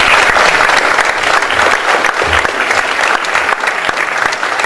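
Audience applauding: loud, steady clapping from many hands.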